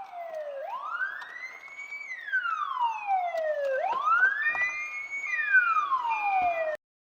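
Emergency vehicle siren wailing, its pitch sliding slowly up and down in long sweeps of about three and a half seconds each, with short steady beeps overlapping in the second half. It cuts off suddenly near the end.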